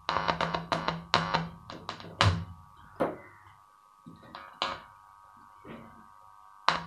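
Electronic music played through two bare woofers driven by a TPA3116 amplifier board: a run of sharp, punchy hits with short decaying tails, several a second at first, then spaced out further apart.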